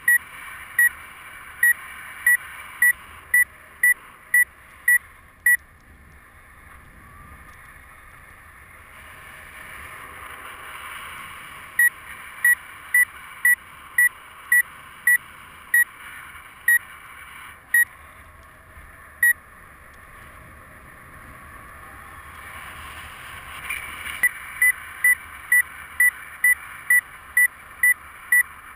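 Paragliding variometer beeping: short, even high beeps about two a second, in three runs separated by silent stretches of several seconds. Such beeping is the climb tone that signals lift. Wind rushes past the helmet camera under the beeps, swelling now and then.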